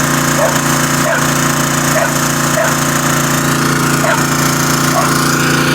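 A loud motor-driven machine running steadily, a constant pitched drone with faint short blips about twice a second.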